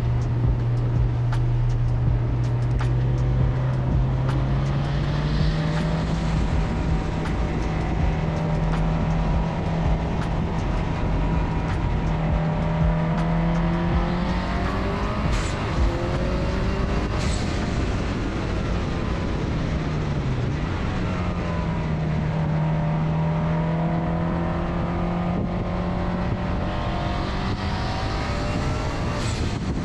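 Engine of a roughly 500 hp wagon running hard on a race track. Its pitch climbs and holds high, dips briefly about two-thirds of the way through, climbs again, and falls away near the end.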